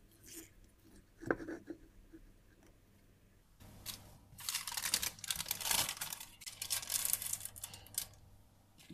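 Parchment paper crinkling and rustling as it is pressed by hand into a metal springform cake pan, through the second half. Earlier, a single knock about a second in.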